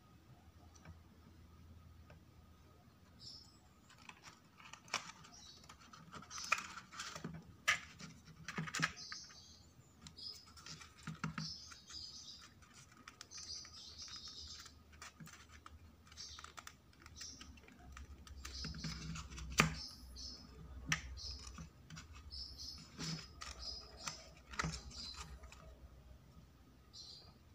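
Small irregular clicks, taps and scratches of stiff printed paper parts being handled, pressed together and glued with a needle-tip plastic glue bottle.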